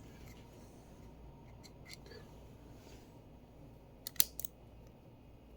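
Faint handling of a wireless mouse, then a quick cluster of two or three sharp plastic clicks about four seconds in.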